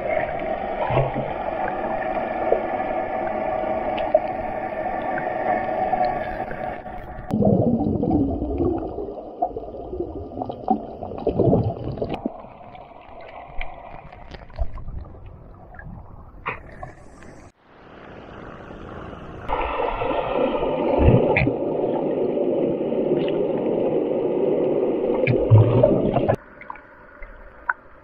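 Underwater sound picked up by a submerged camera: a steady whine with several overtones. It cuts off abruptly about seven seconds in, and in its place come muffled gurgling and knocks, then quieter water. The whine comes back about twenty seconds in and stops sharply near the end.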